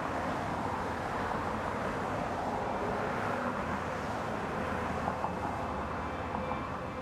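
Steady harbour ambience: a constant wash of noise with a faint engine hum from boat traffic on the water.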